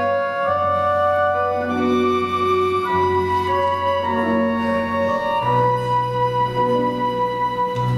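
Orchestra of Russian folk instruments playing a slow instrumental passage: sustained chords and a held melody line over low bass notes that change every couple of seconds.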